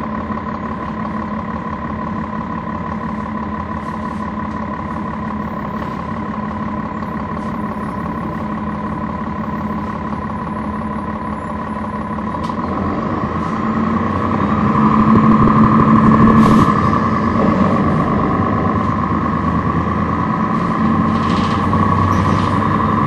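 Cummins ISL9 diesel engine of a NABI 40-SFW transit bus, heard from inside the bus, running steadily with a low hum. About two-thirds of the way in it grows louder for a few seconds and then stays fairly loud, with faint rattles and clicks from the bus body.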